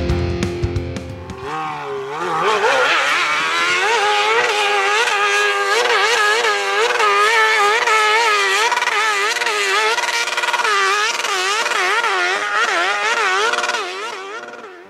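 Hill-climb dirt bike engine at high revs, its pitch surging up and down over and over as it climbs. A piece of rock music ends about a second and a half in, just before the engine comes in, and the engine fades out near the end.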